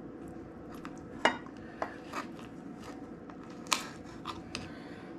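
Kitchen knife cutting limes into small pieces, knocking on the cutting board in a handful of sharp, irregular clicks, the loudest about a second in and again past the middle, over a steady low hum.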